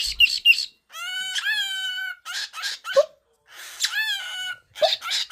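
A pet calling: about three drawn-out, steady-pitched calls of about a second each, with short falling chirps between them.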